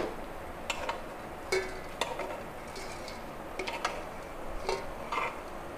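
Steel spoon clicking and scraping against a non-stick appe pan as cooked appe are scooped out of its cups: a handful of light, separate clicks spread over a few seconds.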